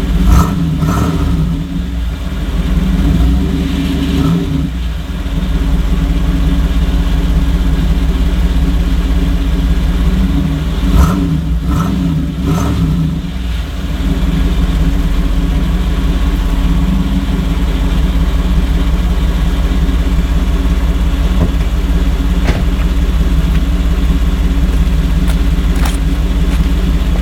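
1992 Chevrolet Camaro RS running through a Flowmaster exhaust, with several short revs in the first half, then settling to a steady idle.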